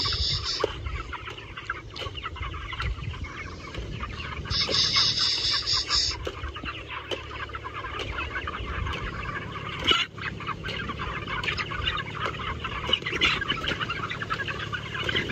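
A large flock of broiler chickens clucking and cheeping continuously, many birds at once, over a low rumble. A steady high hiss lasts about a second and a half around five seconds in, and there is a sharp click about ten seconds in.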